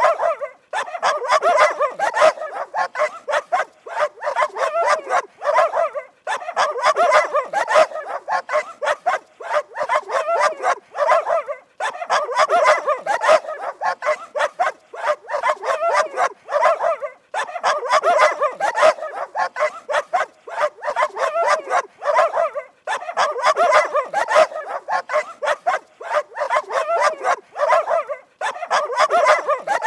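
Dog barking rapidly and without let-up, in runs of about five seconds separated by brief pauses.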